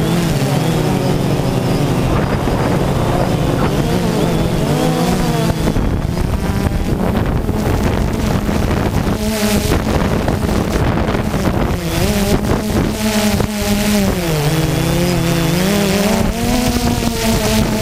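DJI Phantom 2 quadcopter's motors and propellers humming in flight, heard from the camera mounted on the drone. The pitch slowly rises and falls as the drone manoeuvres, dipping lowest about fifteen seconds in.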